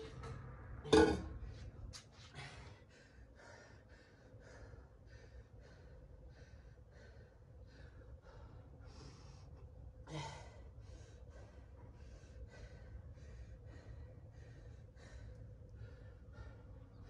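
A man breathing hard and fast in short, regular breaths while he recovers from exertion. There is a loud gasping exhale about a second in and another at about ten seconds.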